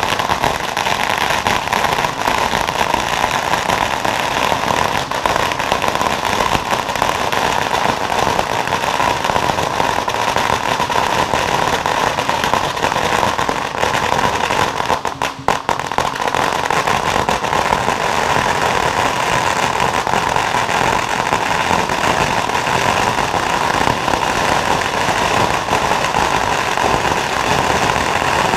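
A long string of firecrackers going off in a dense, continuous crackle, with a brief lull about halfway through.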